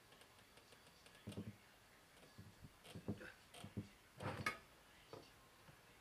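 Manual tire changer's steel mount bar being worked around a motorcycle wheel rim: a handful of short knocks and scrapes, the loudest about four and a half seconds in.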